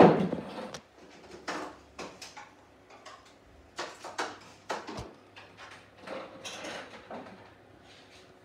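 Handling noise from a handheld phone camera being moved around: a string of rustles, scrapes and light knocks, the loudest right at the start and a sharp click about halfway through.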